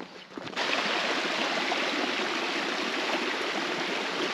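Water of a stream rushing steadily, cutting in abruptly about half a second in.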